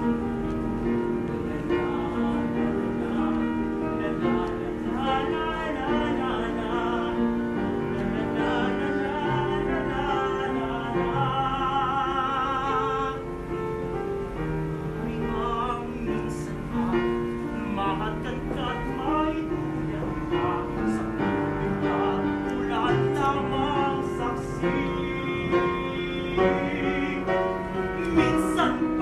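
Music in an operatic style: a singing voice holding long notes with vibrato over piano accompaniment.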